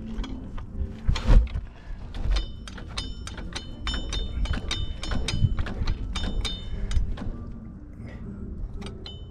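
Metal hand tools clicking and clinking against the engine in quick runs, with a metallic ring, and a louder knock about a second in.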